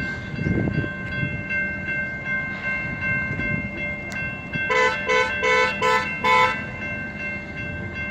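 A car horn honking five quick beeps about halfway through, over the low rumble of a freight train and a steady high ringing tone.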